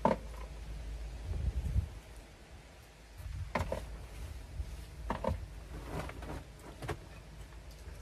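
Bedding being pulled off a travel-trailer bed and the mattress being shifted: fabric rustling and low handling noise, with several short knocks and thumps along the way.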